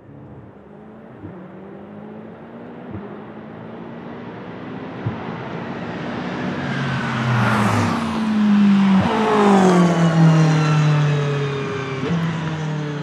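Aston Martin Vantage GTE race car's 4.0-litre twin-turbo V8 running on track. It grows steadily louder as it approaches, passes close by about eight seconds in, and then its engine note drops in pitch as it pulls away.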